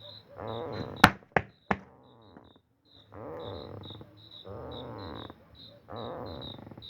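A strange groaning, snore-like noise from under the ground comes in four pulses of under a second each, which onlookers guess is a septic pit ("fossa"). Crickets chirp throughout, and three sharp knocks come about a second in.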